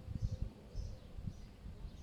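Wind gusting over the microphone in uneven low rumbles, with a small bird faintly chirping, short high chirps about every half second.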